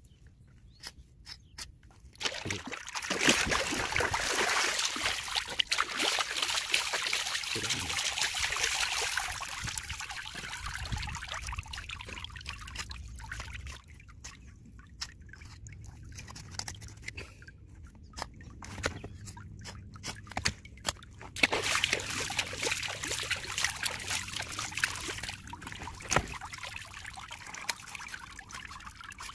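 Water trickling and splashing, with many small clicks, in two long spells: the first starts about two seconds in and lasts some ten seconds, the second comes a few seconds later and is shorter.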